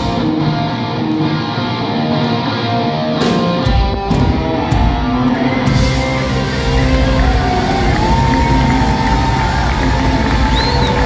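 Live rock band with drums and distorted electric guitar playing the end of a song. About four seconds in, the drumbeat stops and the band holds a ringing final chord, with a long wavering note above it.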